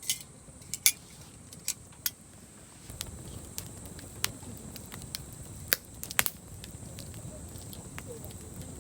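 Wood campfire crackling, with scattered sharp pops and a low steady rush that comes in about three seconds in.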